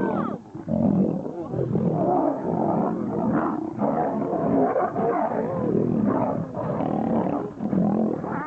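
Lions snarling and roaring in a fight, a near-continuous run of harsh calls with short breaks.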